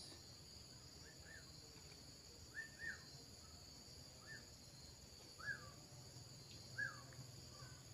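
Faint, steady shrilling of insects, with a small bird's short chirps repeating about every second and a half.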